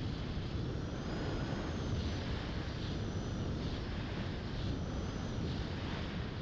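Airflow buffeting the onboard camera's microphone on an Opterra electric model flying wing in flight, a steady rushing noise, with a faint high motor whine that comes and goes.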